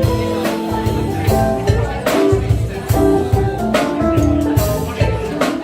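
A Brazilian band playing an instrumental passage of a pop song, with drums hitting roughly once a second over sustained chords.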